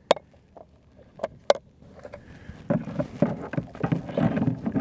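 A few sharp clicks in the first second and a half, then a couple of seconds of knocking and rustling as gear is handled and stowed in a plastic kayak.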